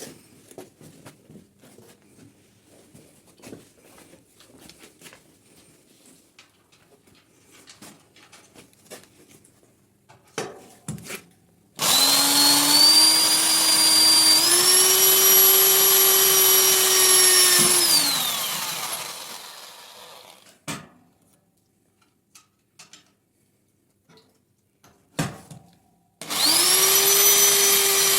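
A high-speed electric motor starts about twelve seconds in, runs with a steady whine, then winds down, falling in pitch, about six seconds later. It starts up again near the end. Before it there are only faint clicks and handling noises.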